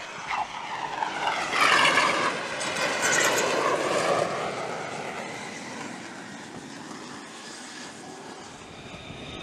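F-35C Lightning II's single jet engine running on a carrier deck just after an arrested landing. Its roar has a sweeping, shifting tone and is loudest a couple of seconds in, then dies down.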